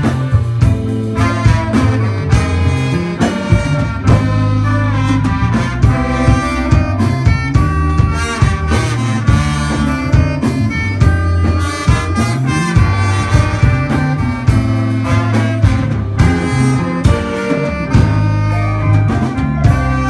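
Live band playing an instrumental groove: a horn section of saxophone, trombone and trumpet carries the melody over electric bass, electric guitar, keytar synthesizer and a drum kit keeping a steady beat.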